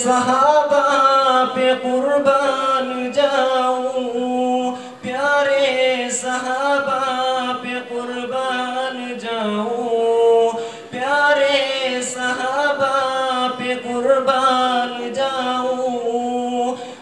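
A young man singing an Urdu ghazal solo with no instruments, in long held notes that glide up and down, breaking briefly for breath a couple of times.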